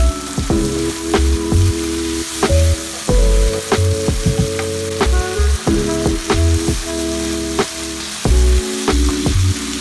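Food sizzling as it fries in a pan, with clicks of utensils. Under it, background music of sustained chords with a steady low beat.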